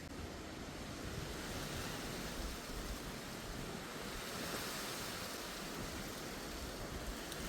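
Steady rushing wind with no distinct events.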